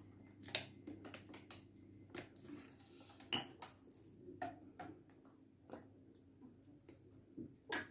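Faint scattered clicks and knocks of a plastic water bottle and a glass being handled and set down on a table, the loudest knock about three seconds in.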